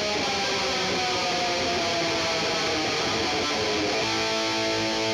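Distorted electric guitar music: a held chord with a pitch sliding downward, changing to a new sustained chord about four seconds in.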